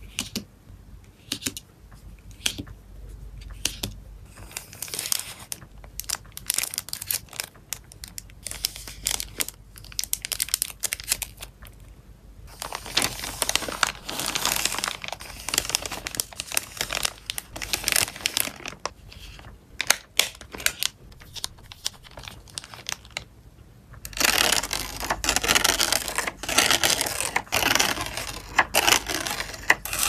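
Hands handling photocards and clear plastic packaging: scattered light taps and rustles at first, then long spells of dense plastic crinkling as the cards are slid into a clear bag, with a short pause before more crinkling near the end.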